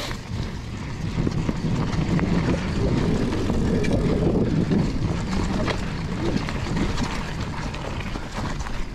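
Mountain bike riding along a dirt trail: a steady rumble of tyres over the ground, with clicks and rattles from the bike, swelling louder through the middle.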